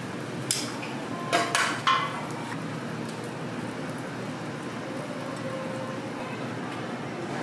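A few sharp metal clacks from steel tongs against a wire rack, about half a second to two seconds in. Under them, a flat-top griddle sizzles steadily.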